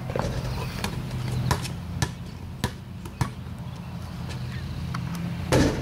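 Basketball bouncing on a concrete driveway as it is dribbled, sharp bounces about every half second, with a louder thud near the end over a steady low hum.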